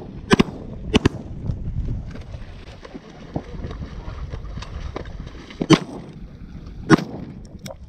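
Shotgun shots over waterfowl: two sharp blasts within the first second or so, then two more about six and seven seconds in, with wind noise on the microphone between them.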